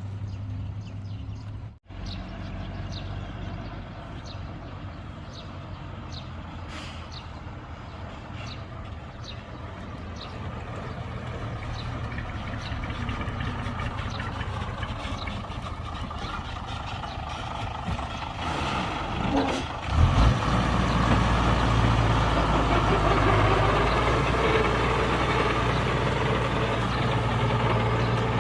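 A heavy diesel engine runs steadily, with a string of light ticks through the first several seconds. About twenty seconds in there is a thump, and the engine runs louder after it.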